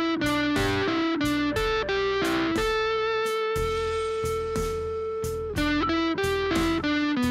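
Electric guitar on its neck mini humbucker, played through an overdriven amp: a single-note lead line of quick notes, then one note held with vibrato for about three seconds, then more quick notes.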